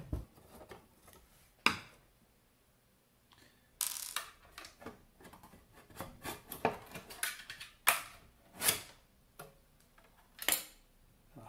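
Sheet-aluminium transponder case being handled and taken apart: several sharp metallic knocks and clatters spread irregularly, with a short scrape about four seconds in.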